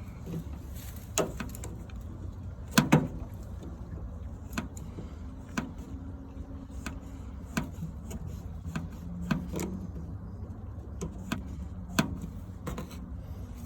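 Scattered clicks and knocks of hands and a tool working a tight inlet water filter out of an older tankless water heater, the loudest a cluster about three seconds in, over a steady low hum.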